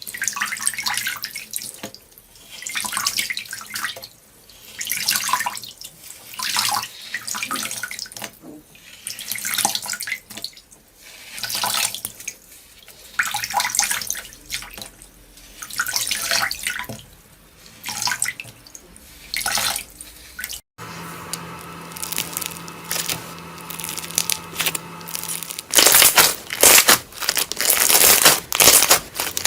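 Slime being squeezed and worked by hand, making wet squelching sounds that swell and fade every second or two. After a cut, a quieter stretch follows, then dense crackling near the end, typical of crunchy slime.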